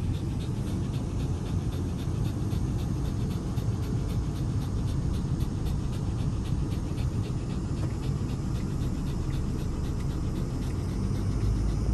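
Shiba Inu panting with its mouth open, quick even breaths, over a steady low rumble.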